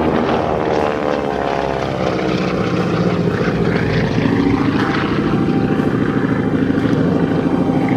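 North American Harvard Mk II's Pratt & Whitney R-1340 Wasp radial engine and propeller in flight. The engine note falls in pitch over the first two seconds as the aircraft passes, then settles into a steady, fast-pulsing drone from about halfway.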